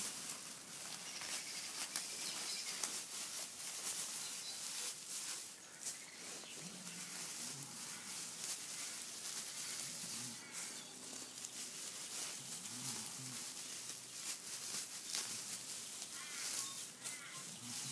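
Dry straw mulch rustling and crackling as it is scattered and trodden on, with many small crackles over a steady hiss. A few faint low tones come through now and then.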